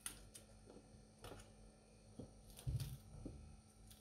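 Faint scattered clicks of a knife cutting through green chillies and the pieces dropping into a plastic hand-blender beaker, with a single duller thump about two-thirds of the way in.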